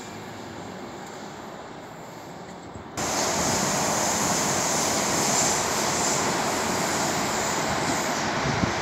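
Steady rushing rail noise of a train on the line through the station, jumping suddenly much louder about three seconds in and then holding steady.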